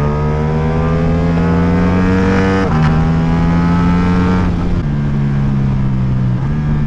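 Ducati Diavel V4's 1,158 cc 90° V4 engine through an Akrapovic exhaust, accelerating hard. Its note climbs steadily in pitch and drops sharply at upshifts about two and a half seconds in and again near five seconds, then pulls again.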